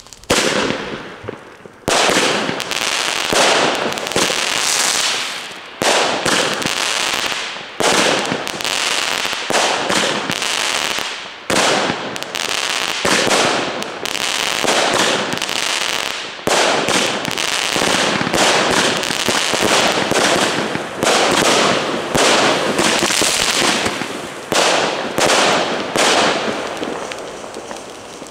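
Lesli Angry Oryx consumer firework battery firing its shots in sequence, about one every one to two seconds. Each is a sharp report followed by the noise of the burst fading away.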